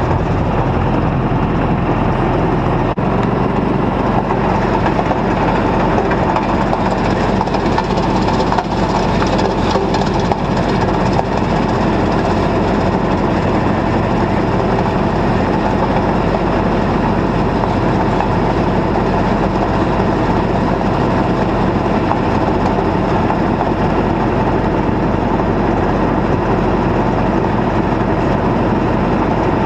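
John Deere 2140 tractor's diesel engine running steadily under way, with a steady low hum and a constant rattle over it.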